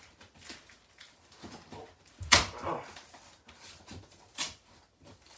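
Cardboard shipping carton being opened by hand: packing tape tearing and flaps pulled back. There is a sharp rip a little over two seconds in, with a brief squeaky trail, and another about four seconds in.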